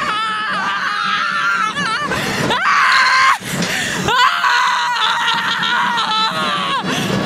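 A girl screaming with thrill on a roller coaster, with wavering shrieks and laughter at first, then two long, high, held screams.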